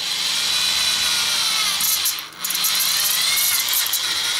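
Electric drill with a 3/16-inch bit boring through a thin aluminium antenna element tube held in a vise, the motor running with a steady whine. It stops for a moment a little past halfway, then runs again.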